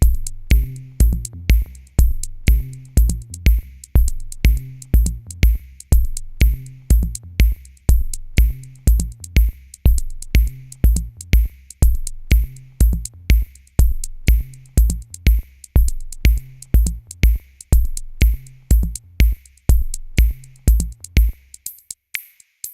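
Background electronic music with a steady drum-machine beat: deep kick drums about twice a second with sharp hi-hat ticks, stopping just before the end.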